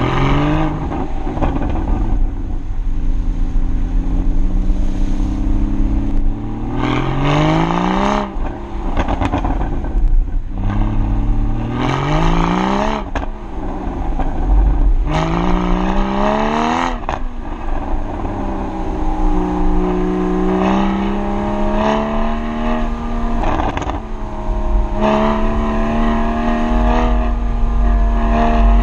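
Porsche Boxster Spyder's 3.8-litre flat-six engine and exhaust under hard driving, loud. It revs up sharply three times through the first half, then runs at a steadier engine speed that rises and falls a little.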